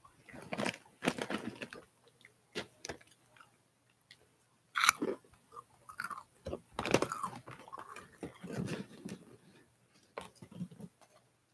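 Close-miked mouth sounds in short bursts, about six times: wet clicking and crackling like chewing.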